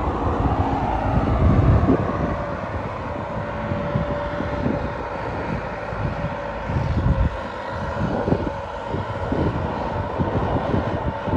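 Turbocharged diesel tractor engine running under load while pulling a disc harrow through wet soil, with an uneven low rumble and wind buffeting the microphone.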